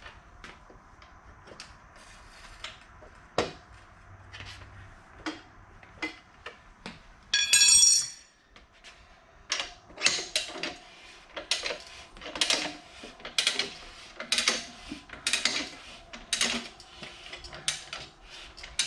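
Motorcycle tire being mounted on a rim with a manual tire changer and levers: metal clicks and knocks, a brief ringing squeal about halfway through, then a run of loud knocks and scrapes about twice a second as the bead is worked over the rim.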